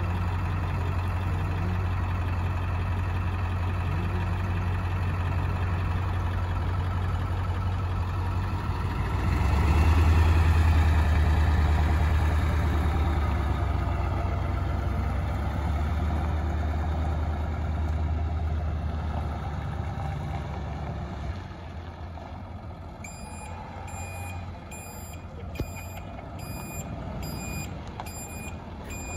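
Ford 7.3-litre Power Stroke V8 diesel in an F550 truck, running steadily at first. It gets louder about a third of the way in as the truck pulls off, then fades as it moves away. Near the end a vehicle backup alarm starts beeping at a steady pace.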